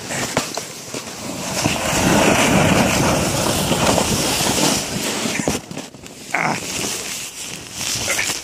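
Orange plastic sled sliding down a snowy slope: a rough, continuous scraping hiss of the sled over the snow. It builds from about a second and a half in, stays loud until about five seconds, then dies down, with a few short knocks as the ride ends.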